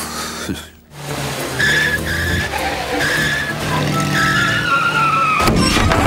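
Cartoon car sound effects: engines running and tyres squealing in drawn-out skids as cars go round a roundabout, over background music, with a brief harsh burst of noise near the end.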